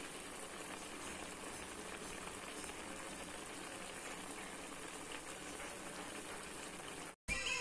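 Spicy broth with beef, tofu and enoki mushrooms bubbling at a steady boil in a pan. It cuts off suddenly near the end.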